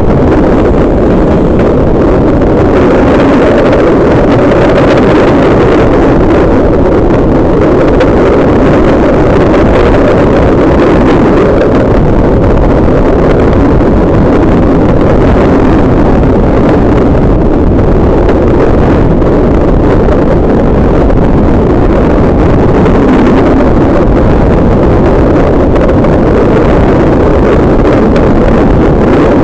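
Loud, steady wind buffeting a microphone held out of the carriage window of a train running at speed, over the train's running rumble.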